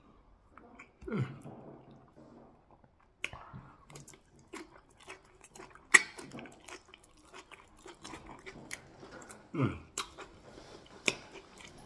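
Close-up wet chewing and lip-smacking of a man eating yellow yam fufu with leafy soup and meat by hand: a run of sharp mouth clicks and smacks, the loudest about six seconds in, with a short low falling sound near the start and again near the end.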